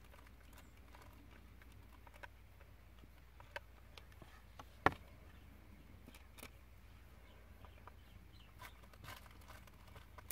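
Faint scattered taps and clicks of hands working with a hot glue gun and lace trim on a hard work surface, with one sharper knock about five seconds in, over a faint low hum.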